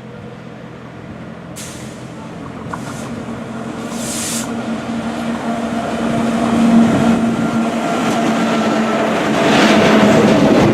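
WAG-7 electric locomotive approaching and growing steadily louder, with a steady hum and three short bursts of high hissing in the first half.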